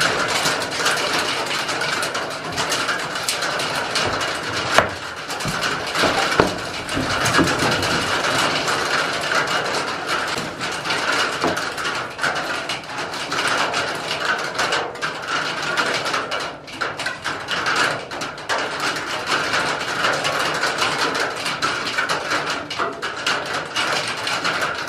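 Heavy rain falling on the roof of a wooden goat shed, heard from inside as a steady, dense patter, with a couple of sharper knocks about five and six seconds in.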